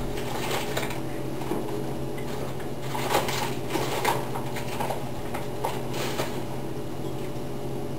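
Steady low mechanical hum throughout, with a few faint rustles a few seconds in.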